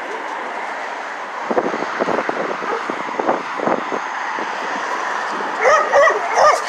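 A dog whining and yipping in short gliding cries, loudest near the end, over a steady background rush.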